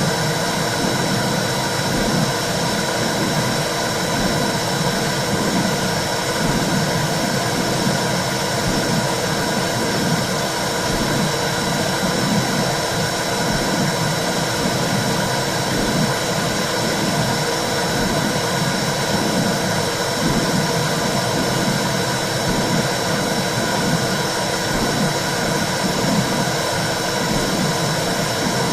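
Womb sound for soothing a baby: a steady whooshing noise with a low rhythmic pulse about once a second.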